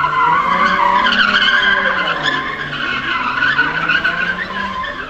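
Car drifting: its tyres squeal in one long, continuous screech while the engine note rises and falls underneath, fading out at the very end.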